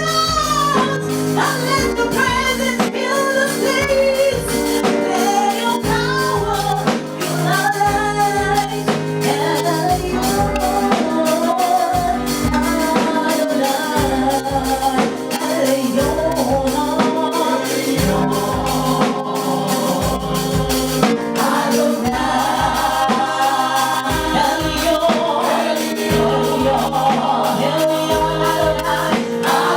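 Gospel worship song: a choir and lead singer over a band with a steady beat and a bass line.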